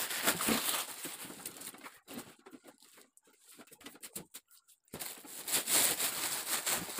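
Plastic packaging wrap rustling and crinkling as it is pulled and handled. It thins to scattered crackles around the middle, then picks up again.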